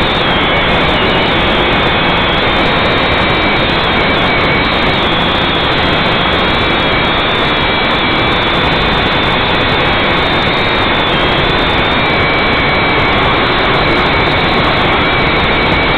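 A small multirotor drone's electric motors and propellers, heard through its onboard camera: a loud, steady whir with faint high whines that waver slightly in pitch as the craft hovers and climbs.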